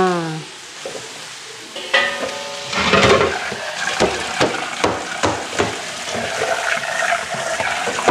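Fern shoots sizzling in hot oil and sambal in a metal wok. From about three seconds in, a metal spatula scrapes and knocks irregularly against the wok as they are stirred.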